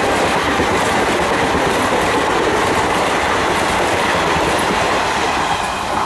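Passenger coaches of a 21-coach express train passing close at speed, their wheels making a steady, loud rush on the rails with the clatter of wheels over rail joints.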